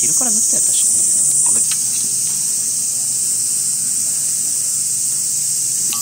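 Steady high-pitched shrilling of insects, easing slightly about two seconds in. A couple of light clicks sound near the start.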